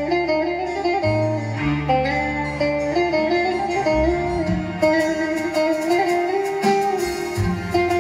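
Long-necked bağlama (saz) playing an instrumental melody, the strings picked quickly with a plectrum, over held low bass notes that change every second or two.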